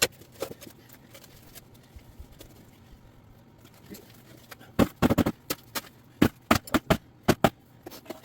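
Intermittent knocks and scrapes of hand tools digging through dirt and broken concrete. A quick cluster of hits comes about five seconds in, and another run of strikes follows a second later, with quieter stretches between.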